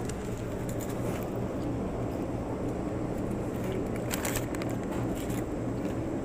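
Steady low background hum, with a few brief crackles about four seconds in.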